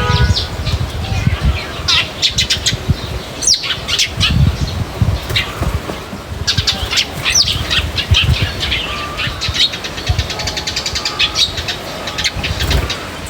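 Small birds chirping and twittering in quick, repeated series, over a steady low rumble.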